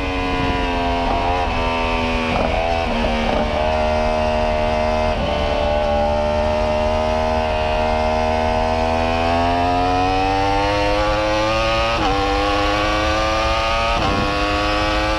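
2015 Yamaha YZF-R1's crossplane inline-four engine pulling hard on track, recorded onboard the bike. The engine note holds high, rises slowly over the second half, and is briefly broken a few times.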